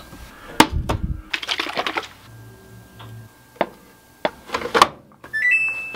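Sharp plastic clicks and knocks from handling the detergent bottle, measuring cup and dispenser, then near the end a short rising electronic chime from the Samsung top-load washing machine as its cycle is started.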